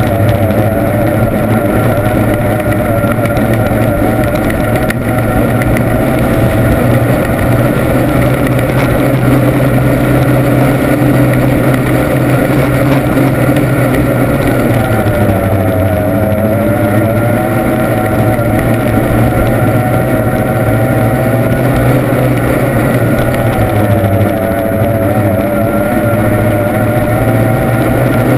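Formula 1 tunnel boat's two-stroke V6 outboard engine running hard at racing speed, heard from on board over a steady rush of noise. Its pitch wavers and sags twice, about halfway through and near the end, then climbs back.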